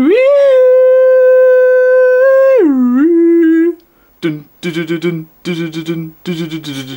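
A voice holding one long high note that slides up, stays steady for about two and a half seconds and slides back down, followed by a shorter lower note and a run of short, choppy lower notes.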